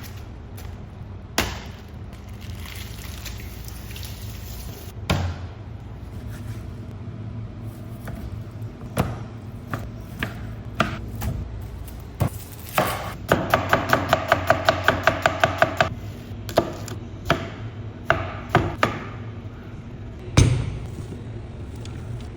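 Kitchen food-preparation sounds: scattered sharp knocks, and about halfway through a fast, even run of about a dozen chopping strokes, roughly five a second, over a steady low hum.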